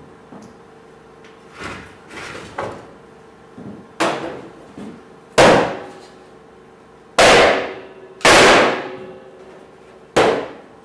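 Hatchet chopping wood: a few light strikes, then five heavy, sharp blows spaced one to two seconds apart, each with a short echoing decay.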